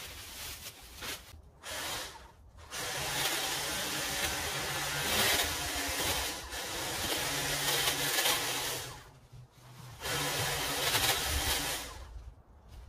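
Power hedge trimmer running in bursts as it cuts into overgrown shrubs: a short blip, a long run of about six seconds, a brief pause, then another run of about two seconds.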